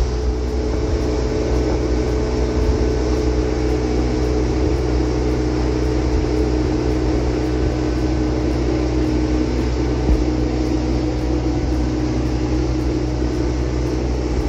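Bayliner Discovery 288 motorboat running at speed: a steady engine drone with an even rush of wind and water over it.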